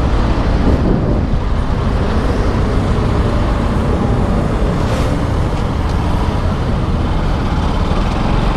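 Bajaj Rouser 200NS single-cylinder motorcycle on the move, heard as steady wind rush and road noise over a helmet-mounted camera, with the engine running underneath.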